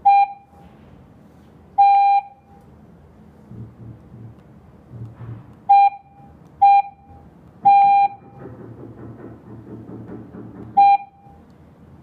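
Alarm panel's touch keypad beeping as its keys are tapped: six single-pitch electronic beeps at uneven intervals, most of them short and two a little longer.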